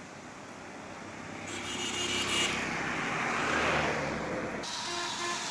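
A motor vehicle passing close by on a road. Its engine and tyre noise swell over a couple of seconds above the steady traffic hiss, then stop abruptly.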